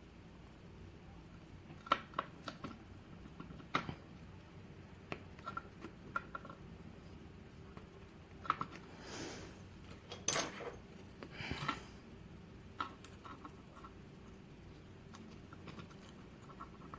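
Small metal clicks, taps and light scrapes of a padlock core, pins and small tools being handled on a work surface, scattered irregularly, with a brief swish about nine seconds in.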